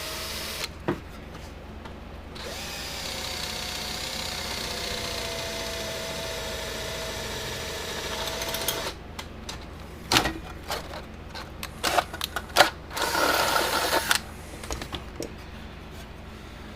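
Electric hand drill boring into stiff metal: a short run, then a longer steady run with a whine that climbs as the motor spins up. Scattered clicks and knocks and another short burst follow near the end.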